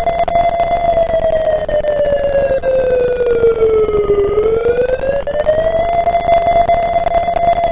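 ACA P-50 siren sounding in a test run: one steady tone that sinks in pitch about halfway through, then climbs back to its full pitch and holds there.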